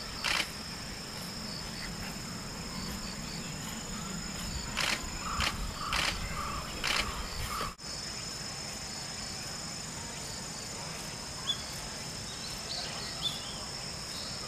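Steady, high insect drone, with a handful of short, sharp calls about five to seven seconds in.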